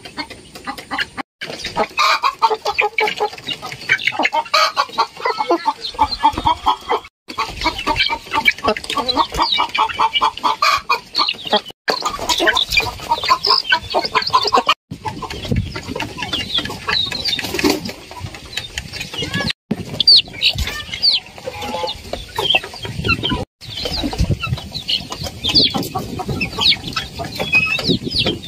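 A flock of ayam kampung (Indonesian native village chickens) clucking and calling in quick runs of short notes, broken by brief silent gaps every few seconds.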